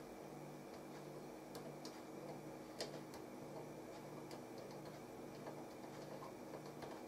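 Faint, irregular light clicks of a screwdriver turning a small trim potentiometer on a circuit board, the strongest nearly three seconds in. Under them runs a low hum that pulses on and off about once a second.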